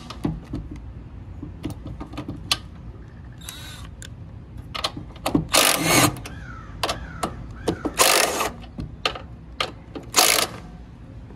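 Cordless impact driver with a 13 mm socket on an extension, run in several short bursts a second or two apart, loosening the nuts of a car's front strut top mount, with light clicks between bursts.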